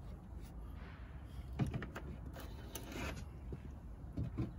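A few light knocks and clunks from a plastic engine-oil bottle being handled and set down after topping up: one about a second and a half in, a short cluster near the middle, and two more near the end.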